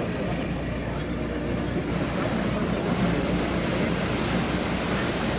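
Ferry crossing: a steady wash of water and wind noise over a low, even engine drone.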